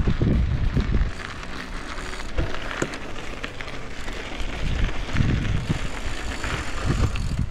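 Mountain bike's knobby tyres rolling and crunching over a gravel path, with gusts of wind rumbling on the microphone near the start and again about five and seven seconds in.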